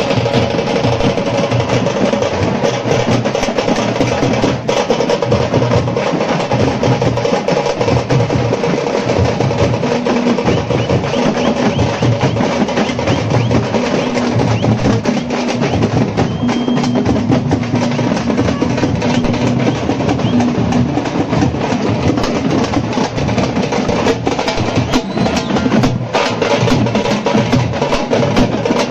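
Tamte frame drums beaten fast with sticks by several players together, a loud, unbroken folk drumming rhythm.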